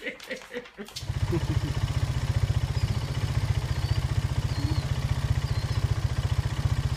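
A steady low engine rumble, like a vehicle idling, starting about a second in. Before it there is brief laughter.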